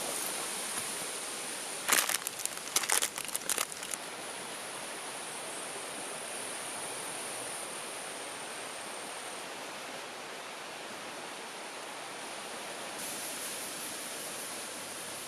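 A forest stream runs steadily. About two seconds in comes a short burst of crinkling and clicking lasting about two seconds.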